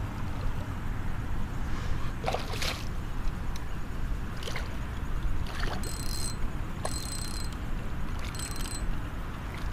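Hooked redfish (red drum) thrashing at the water's surface beside a kayak, with water sloshing and a few sharp splashes, over a steady low rumble of wind on the microphone.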